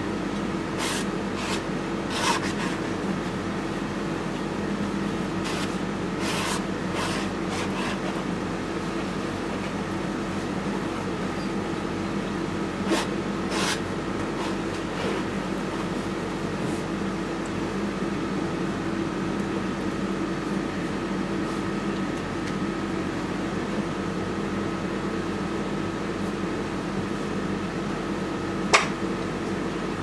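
Steady machine hum of a room appliance under a few short scrapes of a steel palette knife spreading oil paint on canvas, mostly in the first half. A single sharper tap comes near the end.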